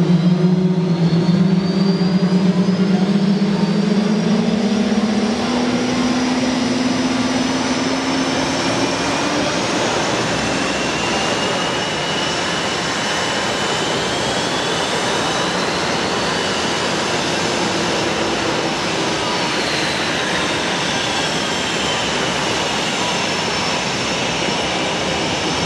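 Boeing F/A-18 Hornet jet engines running on the ramp: a steady roar with high whines that rise and fall in pitch as the engines spool. A low hum climbs in pitch and fades out during the first several seconds.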